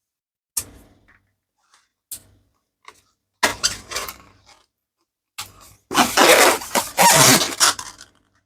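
Mini latex balloons being popped: a series of sharp snaps, spaced roughly a second apart, the loudest about three and a half seconds in, followed near the end by about two seconds of loud, dense crackling.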